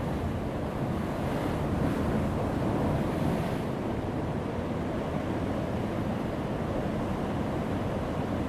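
Heavy ocean waves breaking on a rocky shore: continuous surf noise that swells and hisses as a wave breaks, about one and a half to three and a half seconds in.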